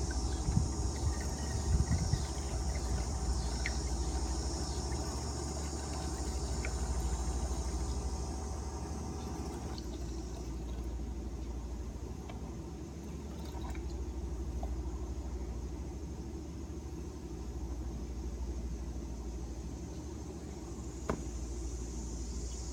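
Wine being poured from a bottle into a growler: a steady run of liquid over a low, even rumble, with a single sharp click near the end.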